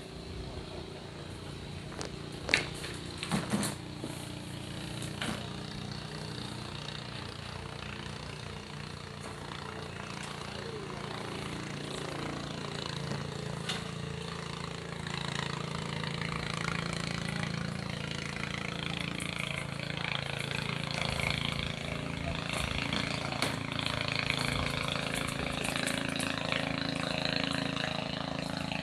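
An engine running steadily, getting louder over the second half, with a few sharp knocks about three seconds in.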